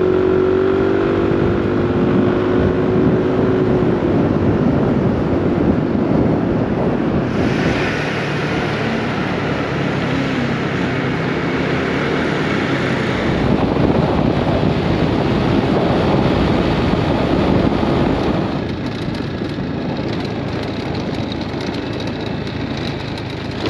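Yamaha scooter's single-cylinder engine running while riding, under a steady rush of wind and road noise. The noise changes character abruptly a few times and is a little quieter in the last few seconds.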